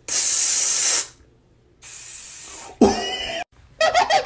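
Spray-can hiss twice: a loud one lasting about a second, then a quieter one about a second later. Near the end, laughter starts.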